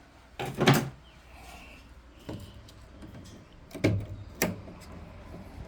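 Knocks and clatters of hands and tools working at the plastic parts of a washing machine: a loud clatter about half a second in, then sharp knocks about two, four and four and a half seconds in.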